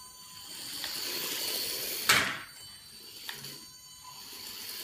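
A WLtoys 2307 1:32-scale RC car's electric motor whining and its tyres rolling on a wooden floor, getting louder over the first two seconds as it picks up speed. A sharp knock about two seconds in is the loudest sound.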